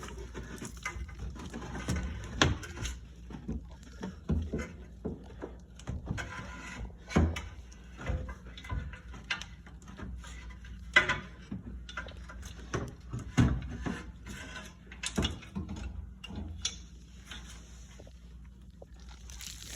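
Irregular clinks and knocks of tools and metal parts being handled during the strut removal.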